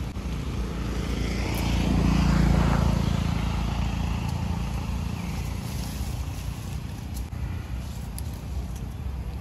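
A passing engine's low drone that swells to its loudest about two and a half seconds in, then slowly fades away.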